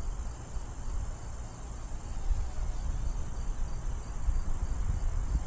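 Wind buffeting the microphone as an uneven low rumble, with a steady high-pitched insect trill, typical of crickets, behind it.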